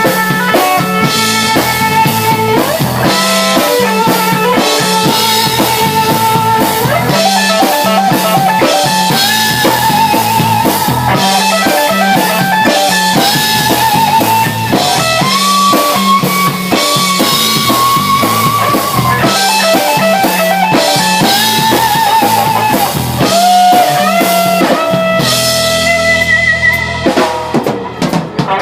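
A rock band rehearsing, with drum kit and guitars playing together. A lead melody with wavering held notes runs over a steady drum beat, and the playing thins out and breaks off near the end.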